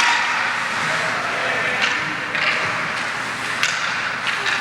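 Ice hockey play on a rink: a steady noise of skates on the ice, with several sharp clacks of sticks and puck.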